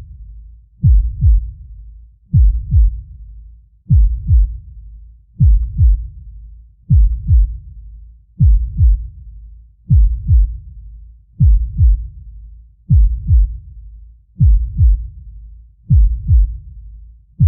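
Deep, slow heartbeat sound effect: pairs of low thumps (lub-dub) repeating evenly about every one and a half seconds, around forty beats a minute.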